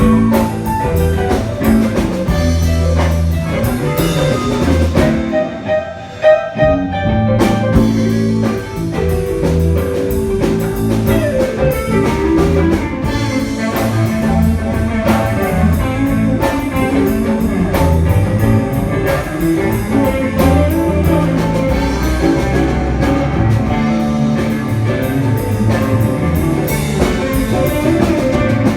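A live band plays instrumental music with guitar, bass and drum kit, in a blues-jazz groove. About five seconds in, the drums and bass drop out for a couple of seconds while the guitar carries on, then the full band comes back in.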